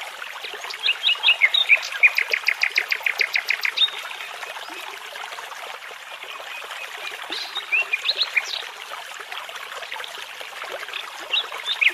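A nightingale singing over the steady rush of a babbling brook. A phrase opens with whistles and runs into a fast train of repeated notes in the first few seconds, then shorter whistled phrases come about two-thirds of the way through and again near the end.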